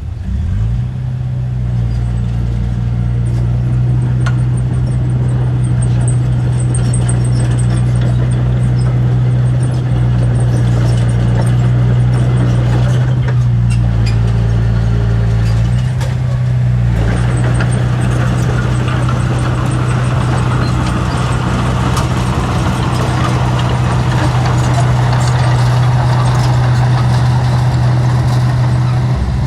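Heavy diesel engine of earthmoving machinery running steadily under load, picking up in pitch just after the start, with a brief change in its note around the middle.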